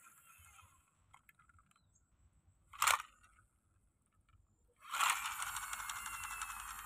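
Small plastic toy construction vehicle pushed by hand over dirt and grass: a short scrape about three seconds in, then its wheels and gears whirring from about five seconds in.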